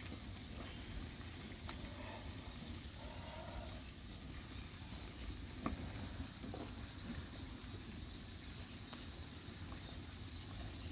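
Faint steady sizzling from a lidded pan cooking over a wood fire, with a few faint clicks.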